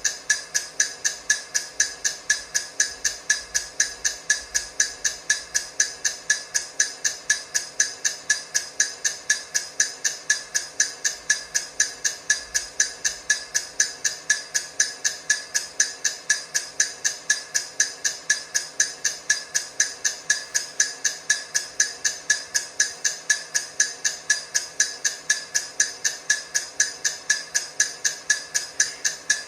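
Countdown timer ticking: a steady, even run of sharp, clock-like ticks, about three a second, unchanging in level.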